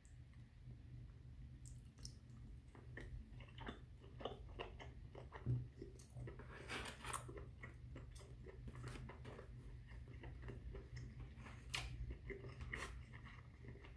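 A person chewing and biting food up close: soft, irregular mouth clicks and smacks, a few louder ones about five and a half, seven and twelve seconds in. A low steady hum runs underneath.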